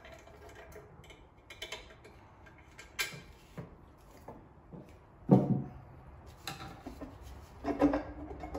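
Scattered metal clicks and knocks of hand tools working on the valve cover of a big-block V8, with one louder knock about five seconds in.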